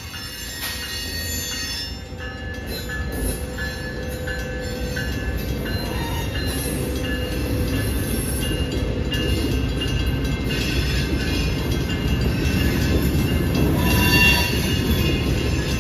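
California Northern freight train passing over a grade crossing: the locomotive goes by, then covered hopper cars rumble over the rails, growing louder. The crossing signal's bell rings, and there is a brief wheel squeal near the end.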